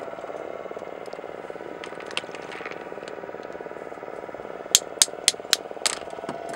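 Shells of pearl oysters clicking sharply against each other, five quick knocks about a second long near the end, as a hand picks through a plastic bowl of them. A steady low hum runs underneath.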